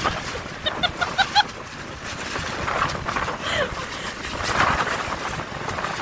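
Strong wind buffeting the microphone while a nylon tent tarp flaps and rustles. About a second in come four quick high-pitched yelps from a woman, and a short falling squeal follows in the middle.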